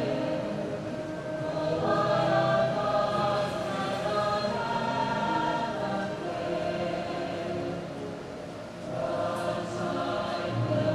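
A choir singing, several voices together, with a short lull about eight seconds in before the voices come back.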